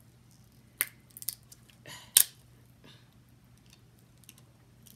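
Snow crab leg shell cracked and snapped apart by hand: a few sharp cracks, the first about a second in and the loudest about two seconds in, with fainter shell crackling between.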